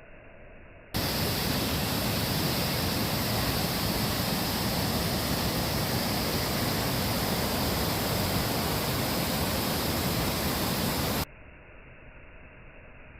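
Waterfall rushing in a steady, loud wash of falling water that cuts in about a second in and cuts off abruptly near the end.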